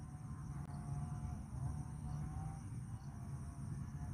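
Steady high-pitched drone of insects, with a low rumble of wind on the microphone.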